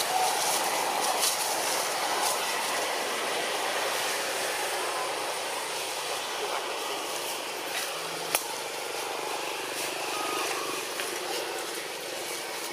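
Steady outdoor background noise with a single sharp click about two-thirds of the way through.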